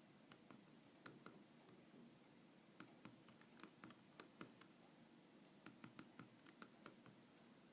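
Faint, irregular clicks of a Nokia 2610 phone's keypad buttons being pressed, sometimes several in quick succession.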